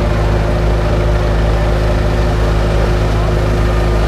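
Park train's engine running with a steady low drone as the train rolls along, heard through a camera riding on the train.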